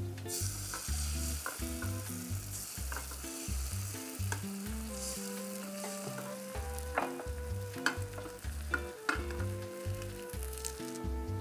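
Egg white, thinned with a little water, sizzling as it is poured into a hot square non-stick tamagoyaki pan around a browned slab of luncheon meat, on residual heat with the flame off. The sizzle starts just after the pour begins and fades away near the end, with a few sharp clicks in the second half.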